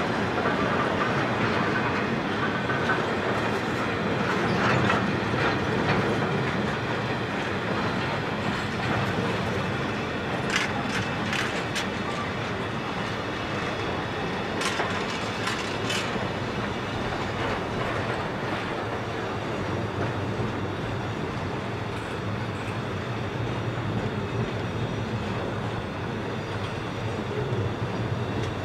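Container flat wagons of a long freight train rolling past, steel wheels running steadily on the rails. Groups of sharp metallic clicks come about ten and fifteen seconds in.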